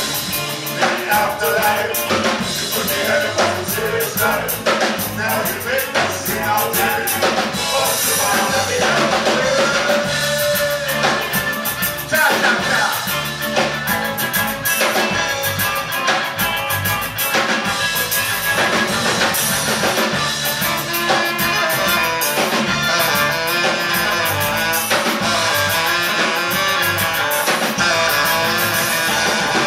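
Live band playing loud rock music: drum kit and guitar with violin, and a singing voice.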